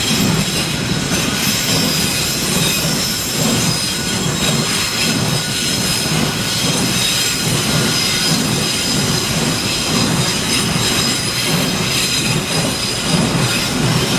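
Storm wind blowing hard and steadily, a loud roar that swells and eases unevenly, with thin high whistling tones held over it.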